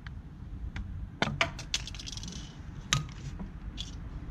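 Metal tools and parts being handled: a series of separate sharp clinks and knocks, the loudest about three seconds in with a brief metallic ring.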